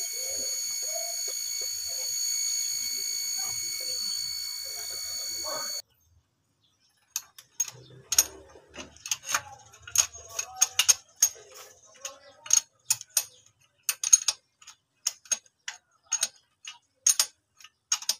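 A steady hiss with a thin high whine that cuts off abruptly about six seconds in. After a short silence come quick, irregular metallic clicks from a wrench turning the bolt of the camshaft timing-chain sprocket.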